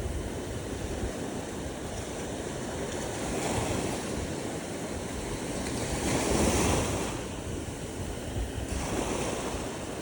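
Ocean waves breaking and washing on a beach, swelling loudest about six seconds in, with wind buffeting the microphone.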